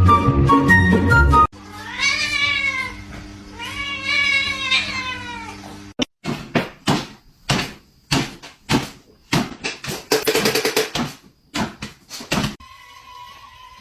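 A domestic cat meowing about three times, each meow drawn out and bending in pitch, over a steady low hum, after a short bit of music at the start. It is followed by a quick, irregular run of sharp knocks or taps lasting several seconds.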